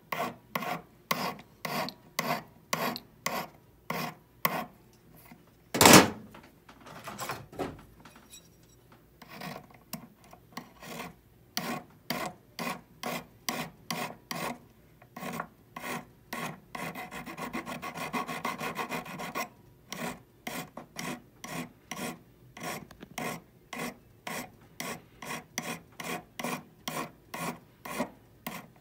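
A flat hand file rasping back and forth across a hollow 14-karat gold bangle, about two strokes a second. There is one sharp knock about six seconds in, and a stretch of quicker, continuous strokes about two-thirds of the way through.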